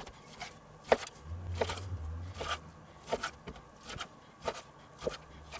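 Kitchen knife slicing raw pork tenderloin into chunks on a wooden cutting board, the blade knocking lightly on the wood with each cut, in irregular strokes about two a second.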